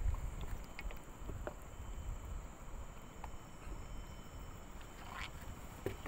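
Water sloshing and splashing, with a few small knocks and a low rumble throughout.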